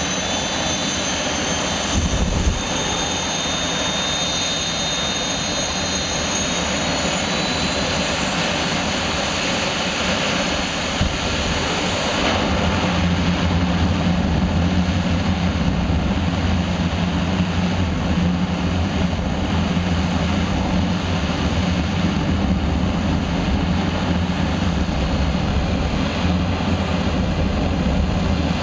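Green Mamba jet car's jet engine running at full blast, its exhaust flame burning a car. A thin high whine fades out over the first several seconds, and about twelve seconds in a deeper rumble comes in and holds.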